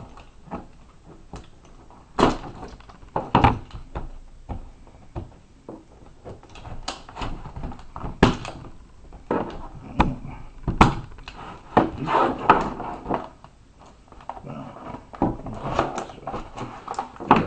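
A sealed cardboard box of trading cards being opened and handled by hand: a run of irregular knocks and clicks with rustling stretches in between.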